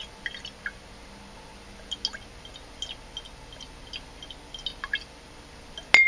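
Drops of stop-leak sealant falling into a glass jar of liquid, making irregular small high plinks a few times a second. A sharp clink of glass comes at the very end.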